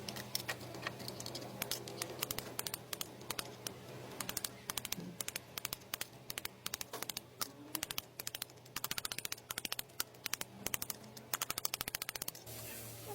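Ratchet wrench clicking in quick runs of sharp ticks, stopping and starting again, with a faint steady hum underneath.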